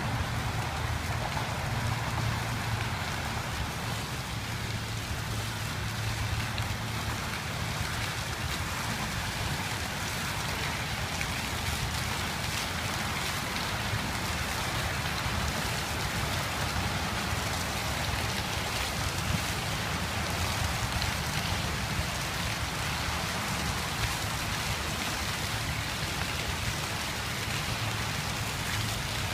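Outdoor fountain jet spraying water into the air, the water splashing back down onto the pool's surface in a steady patter, with a low rumble underneath.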